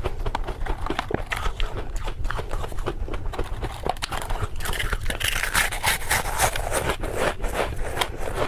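Soft, crispy flavoured ice chips being chewed up close: a dense, continuous run of small crunches and crackles.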